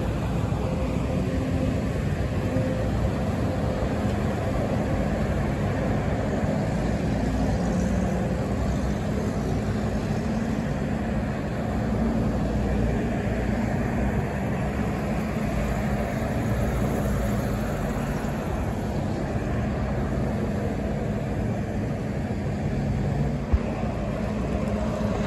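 Steady road traffic: cars, pickups and heavy trucks driving past, with engine hum and tyre noise. A single sharp tap about a second and a half before the end.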